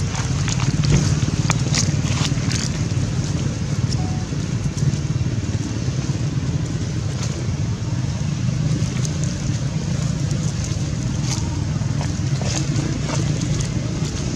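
Steady low engine drone with scattered faint clicks.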